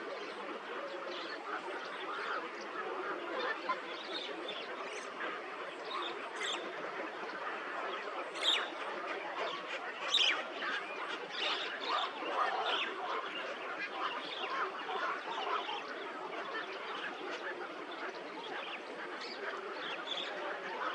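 Dense chorus of many birds calling at once, short overlapping calls without a break, with a few sharper, louder calls standing out near the middle.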